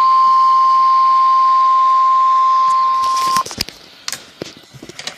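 NOAA Weather Radio warning alarm tone, a loud steady single-pitched beep, cutting off suddenly about three and a half seconds in, followed by scattered sharp clicks and faint radio static. The tone signals an emergency alert broadcast, here a tornado watch.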